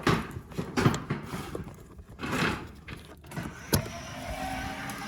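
Clicks, knocks and short scraping sounds of parts being handled and fitted, with a sharp click just under four seconds in, then a faint steady tone.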